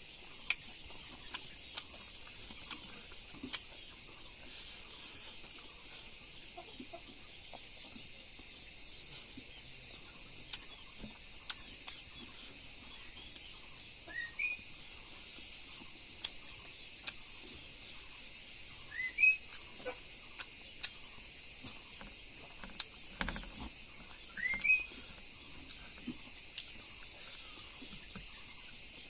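A steady high-pitched insect chorus, like crickets. A short rising chirp comes about every five seconds in the second half, and sharp clicks are scattered throughout.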